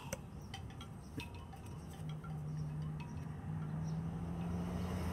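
Light clicks and taps of large oracle cards being handled, with faint chime-like ringing tones and a steady low hum that comes in about two seconds in.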